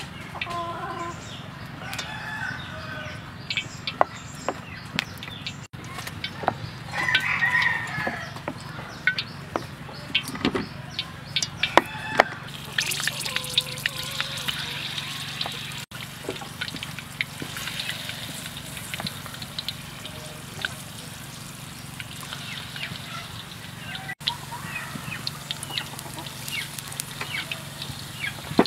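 Chickens clucking, mixed with sharp clicks and knocks, for the first part; then, from a little before halfway, the steady hiss and sizzle of battered frog pieces deep-frying in hot oil in a wok.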